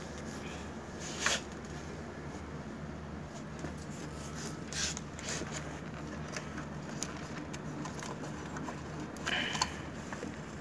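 Handling noise from wires and plug connectors being fitted onto an air-conditioner's circuit board: a few short scrapes and rustles, about a second in, around the middle and near the end, over a steady low hum.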